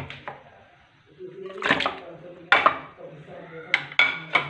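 Raw boneless chicken pieces being tipped from a plate into a non-stick karahi: a series of sharp knocks and clatters of crockery and pan, in three clusters, with the loudest near the middle and just before the end.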